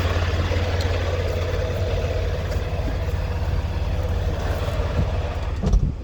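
Freightliner Cascadia semi-truck diesel engine idling steadily, with a thump near the end, after which it sounds quieter.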